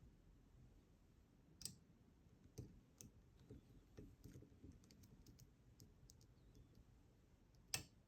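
Faint, irregular small clicks of a lock pick working the pins of an ASSA 700 pin-tumbler lock, with two sharper clicks, one about a second and a half in and one near the end.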